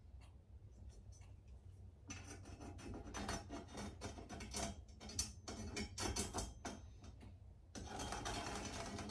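Pencil scratching marks across the end-grain wood pieces of a cutting-board layout: a run of short strokes starting about two seconds in, then a longer unbroken scribble near the end.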